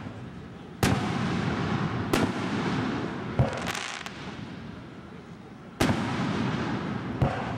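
Aerial fireworks shells bursting: five sharp bangs about a second or two apart, each followed by a rolling rumble, with a brief crackle about four seconds in.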